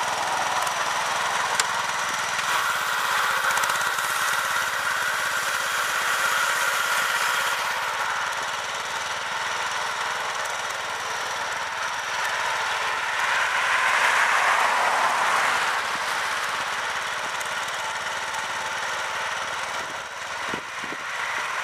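Snapper LT11 lawn tractor's small engine running steadily under load as it pushes a front snow blade along a sidewalk. It grows louder for a few seconds about two-thirds of the way through.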